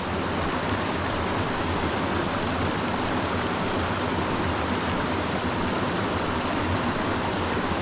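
A small mountain creek rushing and burbling over rocks, a steady, even rush of water.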